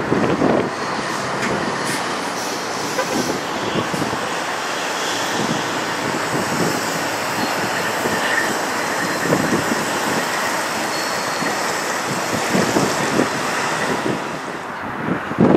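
Freightliner Cascadia semi-truck rolling slowly past at close range: a steady diesel engine and tyre noise, with gusts of wind buffeting the microphone.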